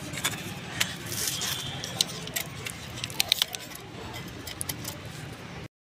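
Irregular light clicks and crackles, sharp and scattered, over a faint steady background; the sound cuts off abruptly near the end.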